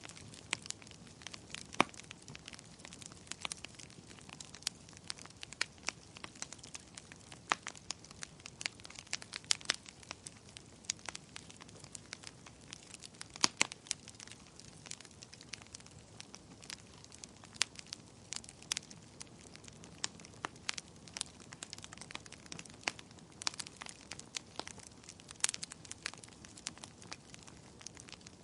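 Fire crackling: irregular sharp pops and snaps over a soft hiss.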